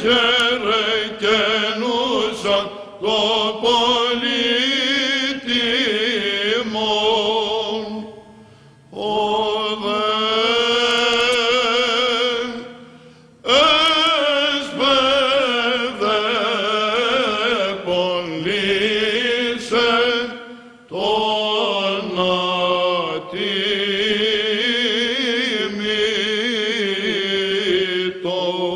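Greek Orthodox Byzantine chant sung by a small group of male chanters: a slow, ornamented melody held over a steady drone note (the ison), in four long phrases with brief pauses for breath between them.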